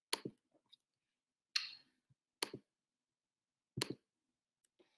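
Several sharp computer clicks at irregular intervals, two of them in quick pairs, as a laptop is worked to start a screen share.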